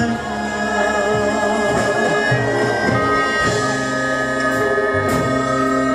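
Live music from a Korean traditional (gugak) orchestra playing slow, long held notes, with a man singing.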